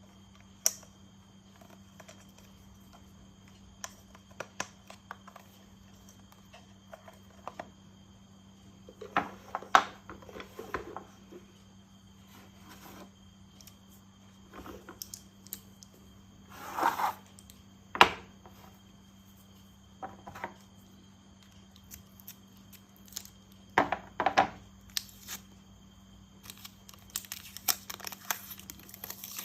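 Plastic toy parts and packaging being handled and unwrapped: scattered clicks and taps with short crinkling, tearing rustles, busiest near the end, over a faint steady hum.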